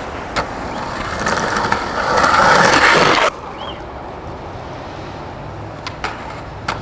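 Skateboard wheels rolling over rough concrete, a gritty rolling noise that grows louder and then cuts off abruptly about three seconds in. After that there is a quieter street background, with two sharp knocks near the end.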